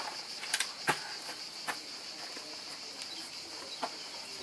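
Steady high-pitched buzzing of an insect chorus, with a few faint sharp clicks scattered through it, the clearest about a second in.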